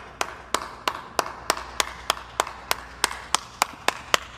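One person's slow, steady hand clapping, about three claps a second, quickening slightly near the end.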